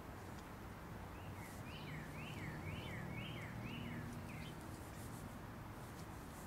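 A songbird singing: a quick run of about eight short, down-slurred whistled notes that starts about a second and a half in and lasts about three seconds, over a faint steady low hum.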